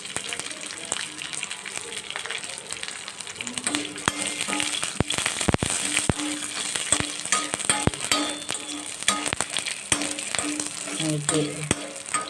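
Chana dal and urad dal with fresh curry leaves and dried red chillies sizzling in a little oil in a pan, with a spatula clicking and scraping against the pan as they are stirred and roasted.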